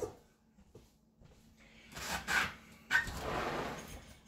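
A door being opened and slammed shut to let a dog outside, with a sharp knock about three seconds in.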